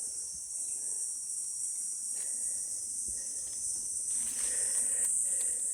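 A steady high-pitched insect chorus of crickets, with a few faint rustles and knocks in the second half.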